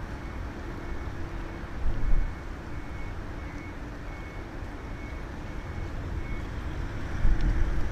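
Steady rumble of airport apron background noise, with two louder gusts of wind on the microphone, one about two seconds in and one near the end. A faint high beep repeats on and off through most of it.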